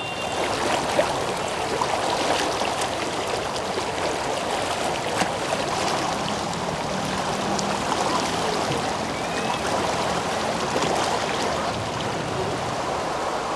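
Swollen floodwater rushing steadily past.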